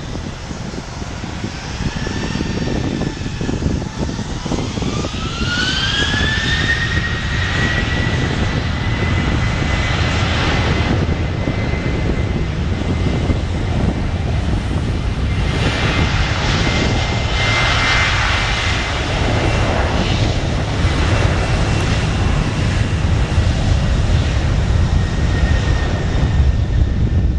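Boeing 737-800's CFM56-7B turbofan engines spooling up to takeoff thrust: a whine rises in pitch over a few seconds and then holds steady over a loud low rumble that slowly builds.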